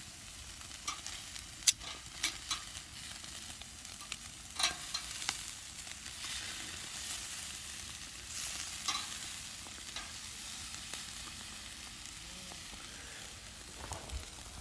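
Pork neck sizzling as it grills over a wood fire: a steady high hiss broken by sharp crackles and pops, most of them in the first few seconds.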